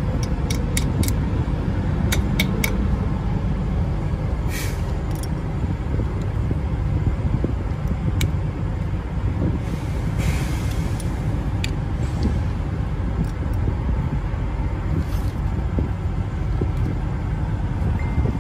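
Small metal tool clicking against the spindle nut at a trailer wheel hub while a loose wheel bearing is adjusted. Under it runs a steady low rumble of vehicle engines, with a few short hisses.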